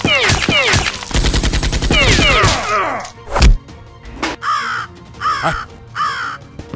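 Dubbed toy-blaster sound effects: bursts of falling-pitch "pew" zaps, a rapid machine-gun-like rattle about a second in, and one loud thump about halfway through, followed by three more clusters of zaps.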